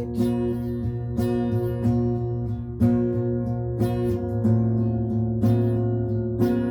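Music with no singing: an acoustic guitar strummed in a steady rhythm over held chords, an instrumental break between sung lines of a gospel song.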